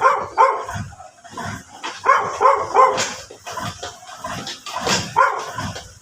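A dog barking in short runs of two or three barks, with pauses between the runs.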